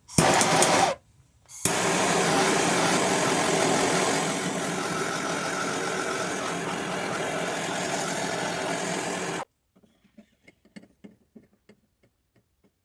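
Motor-driven power tool running steadily with a loud grinding hiss, which cuts off abruptly about two thirds of the way through. A brief loud burst comes just before it, and a few faint clicks after.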